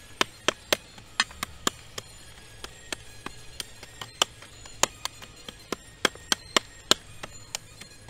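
Short-handled pick striking stony soil again and again: sharp clinks of the metal head on stones and earth in short quick runs, about three or four strikes a second, each with a brief ring.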